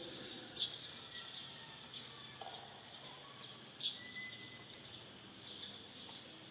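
Faint birdsong: short, sharp chirps, the clearest about half a second and four seconds in, with a few thin whistled notes over a steady high-pitched drone.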